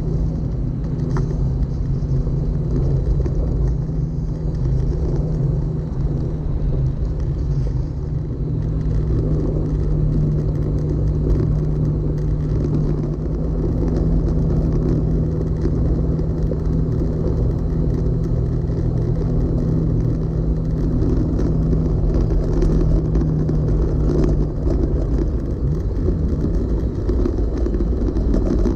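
Vehicle driving on a dirt trail: the engine runs at a steady note under constant road noise. The engine note changes about 25 seconds in.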